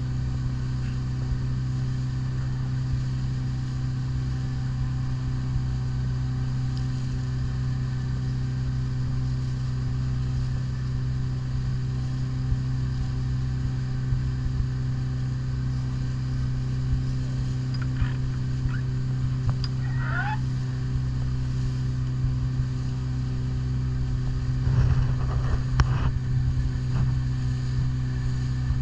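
Outboard motor of a Zodiac inflatable boat running at a steady, even hum as it cruises over calm water. A few short, louder knocks or splashes come near the end.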